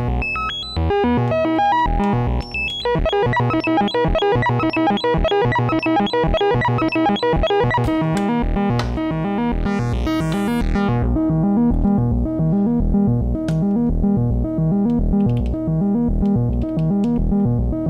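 Make Noise XPO oscillator playing a fast sequenced run of notes that is transposed by a second sequence into shifting keys as well as pitches. About eight seconds in, the bright high notes drop away and a lower, evenly repeating note pattern carries on, with a brief hiss-like burst near the ten-second mark.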